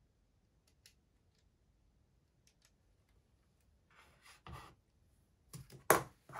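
Hands handling a calculator and pen on a desk: a soft sliding rub, then a quick run of knocks near the end, one much louder than the rest, as they are put down on the desktop.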